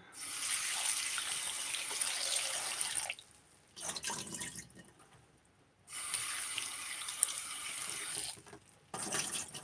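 Kitchen tap running into a sink, turned on and off in spells of a few seconds, as chopped potatoes, onion and garlic are rinsed under it.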